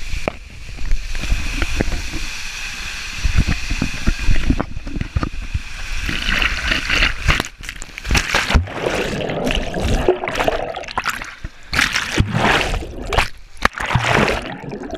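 Water rushing down a water slide with the rider's body knocking along the tube, then splashing into a pool about halfway through. After that comes churning, sloshing and gurgling water close around the rider, who dips under the surface near the end.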